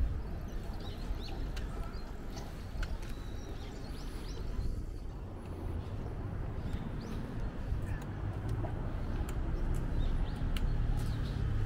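Outdoor ambience of a low, steady rumble with small birds chirping over it, short high chirps scattered throughout. A vehicle's low hum builds in the last few seconds.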